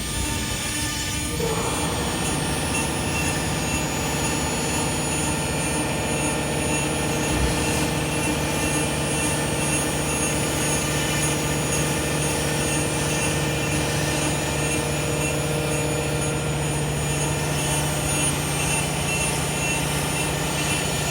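4-axis CNC router running steadily: a constant low hum with a high-pitched steady whine, the working noise growing fuller about a second and a half in.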